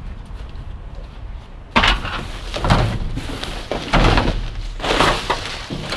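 Debris being shifted and handled in a dumpster: a sudden loud knock about two seconds in, then several more knocks and rustling clatter at uneven intervals.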